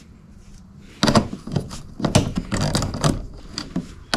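Irregular clicks and knocks of a tachometer being handled and worked into a hard plastic instrument cluster housing. They start about a second in and come in an uneven run.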